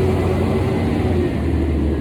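A garbage truck's engine running steadily nearby, a loud low drone that drops a little in pitch about a second in.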